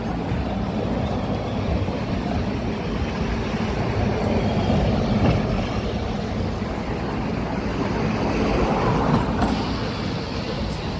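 City street traffic, with a heavy vehicle's engine running close by. A brief high-pitched tone sounds about nine seconds in.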